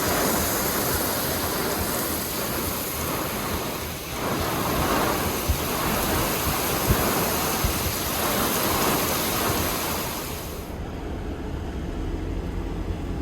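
Storm wind and rain: a steady rushing hiss that swells and eases in waves, its upper hiss dropping away abruptly near the end.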